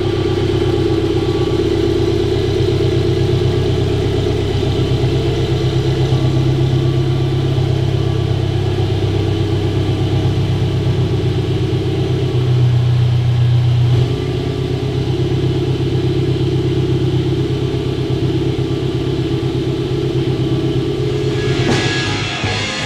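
A 1962 Amphicar 770's rear-mounted Triumph four-cylinder engine idling steadily, its note changing briefly about twelve seconds in. Music comes in near the end.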